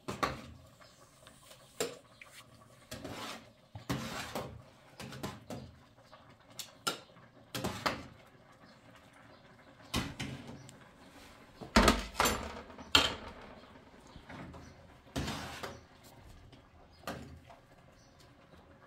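Kitchen clatter of a spoon and ladle knocking and scraping against a cooking pot and plates as food is dished out: irregular clinks and scrapes, the loudest a little past the middle.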